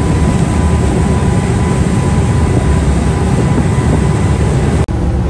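Steady rumble and rush of a party fishing boat underway: its engines running, with wind and water noise from the bow wake. It cuts out for an instant near the end.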